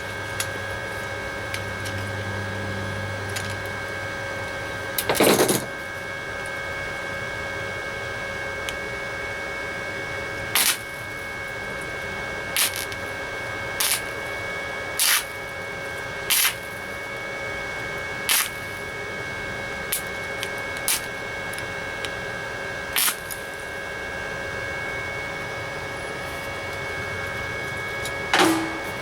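Titanium Easy-Flux 125 flux-core welder laying short tack welds on a sheet-metal patch: about ten brief, sharp bursts at uneven intervals, the longest about five seconds in, over the machine's steady whine.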